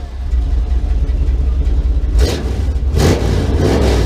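A vehicle engine rumbling steadily, with two brief louder surges about two and three seconds in.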